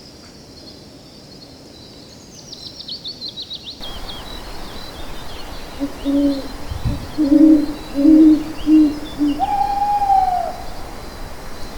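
Owl hooting: a run of about six low hoots, then a longer, higher call that rises and falls. Earlier, a quick falling run of high pips.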